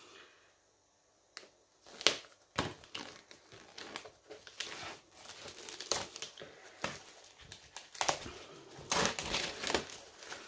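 Clear plastic shrink-wrap being slit and pulled off a large photo album, crinkling and crackling irregularly from about a second and a half in.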